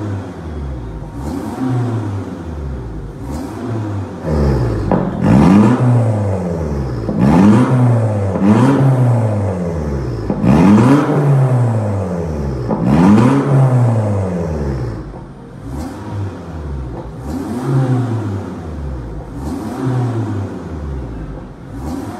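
Perodua Kelisa engine revved over and over through an aftermarket valved performance exhaust: a run of quick throttle blips, each rising and falling in pitch, about one every one to two seconds. The blips are louder from about four seconds in until about fifteen seconds in.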